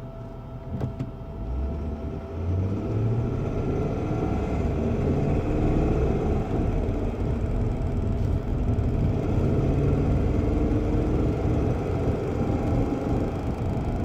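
Inside the cabin of a 1994 BMW 840Ci, its V8 engine pulling the car away from a stop and accelerating, with engine and road noise building. About five seconds in, a faint, constant, high-speed clicking from the dashboard begins. It appears only when the car is moving and is not the common heater valve noise; its cause is unknown to the owner.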